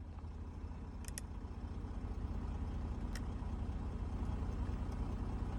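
Audi Q7 engine idling steadily at low revs with the climate control off. Its sound is even and smooth, with no knock. Two faint light clicks come about one and three seconds in.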